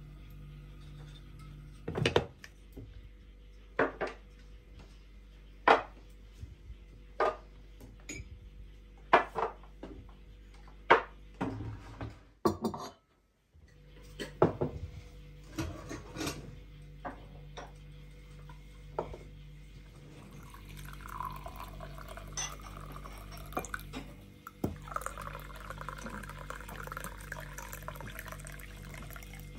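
Porcelain and metal clinking in separate sharp knocks as a teapot is set on a samovar and cups and dishes are handled. In the last third, hot water runs from the samovar's tap into a ceramic mug in a steady pour.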